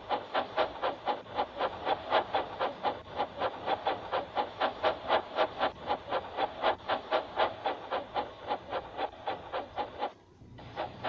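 Steam locomotive chuffing in a steady rhythm, about five puffs a second, breaking off briefly about ten seconds in.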